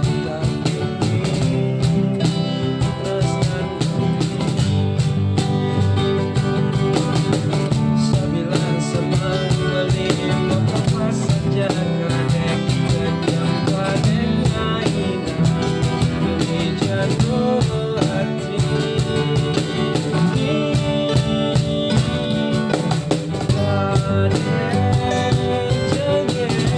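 A rock band playing a song, with guitars over a steady drum beat.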